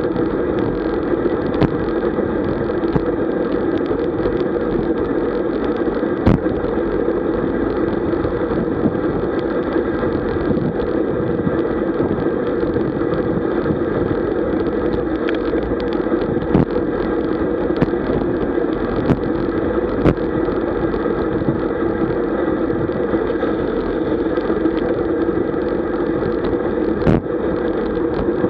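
Steady rush of wind and tyre noise on a camera mounted on a road bike riding in a group at about 45 km/h, with a few faint clicks scattered through it.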